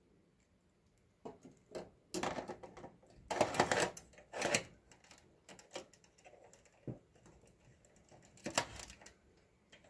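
Hard plastic and metal parts of a server being handled: several short, irregular bursts of clicking and clatter, the loudest about three and a half seconds in, with one sharp single click near seven seconds.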